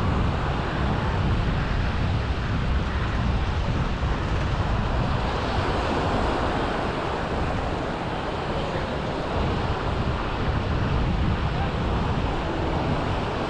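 Wind buffeting the microphone with a low, fluctuating rumble, over a steady rush of sea surf.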